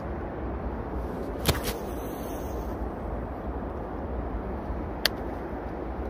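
Steady traffic rumble and wind noise, with a few sharp clicks from a hand-held Abu Garcia Revo ALC-IB6 baitcasting reel: a pair about a second and a half in and one more about five seconds in.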